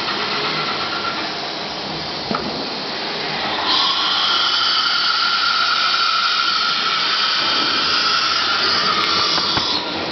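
CNC router spindle spinning up with a rising whine, then running at high speed with a steady high-pitched whine and hiss.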